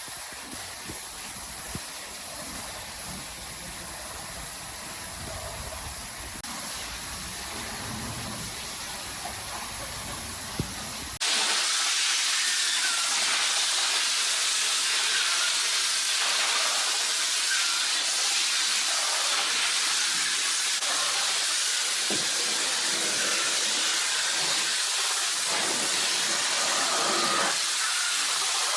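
Steady hiss of spraying water. About eleven seconds in it cuts abruptly to a louder, sharper hiss.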